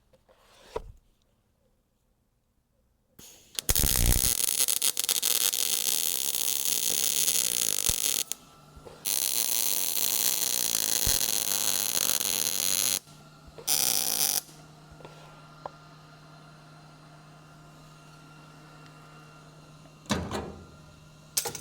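Angle grinder grinding down spot welds on a steel cab floor pan, in runs of about five seconds and four seconds and then a brief burst. A low steady hum carries on quietly afterwards.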